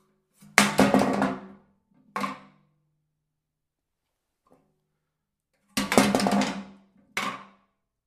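Metal trash can with contents inside clattering with a metallic ring, in two loud crashes about five seconds apart. Each crash is followed about a second later by a shorter, quieter knock.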